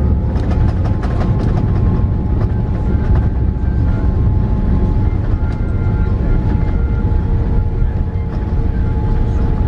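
Cabin noise of a Boeing 787-8 just after landing: a loud, steady rumble with steady engine tones over it, and a few rattles and knocks in the first second or two.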